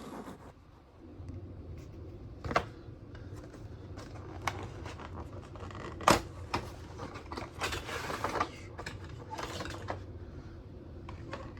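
A plane-model box being opened and the model and packaging taken out: scattered clicks and knocks, the loudest about six seconds in, with stretches of rustling near the end, over a low steady hum.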